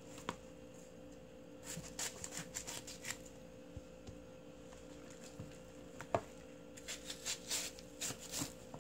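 Kitchen knife cutting through salted napa cabbage leaves: two short runs of quick rustling cutting strokes, one about two seconds in and one near the end, with a single sharp knock about six seconds in, over a faint steady hum.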